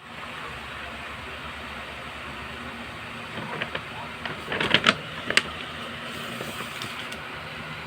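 Steady background hiss, with a short run of crinkles and clicks about halfway through from a parcel or its plastic wrapping being handled.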